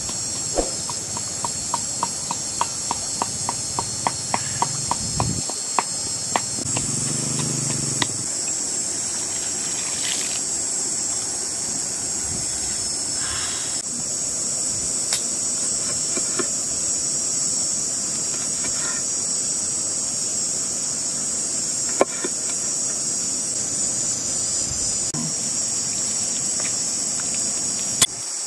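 Steady, high-pitched drone of insects. A quick run of clicks, about four a second, fills the first few seconds, and a few single sharp knocks come later.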